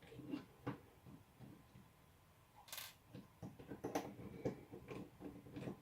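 Faint small clicks, ticks and a brief scrape of screws being undone and plastic parts of an electric shaver's casing being handled during disassembly.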